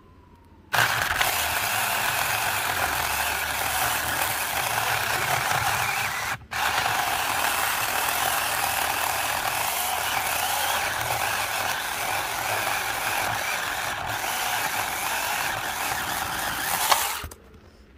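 Saker battery-powered mini chainsaw with a 4-inch bar running and cutting through a piece of wood about 3 inches thick: a steady whirr of motor and chain that cuts out for a moment about six seconds in and stops shortly before the end. The saw struggles a little in this cut.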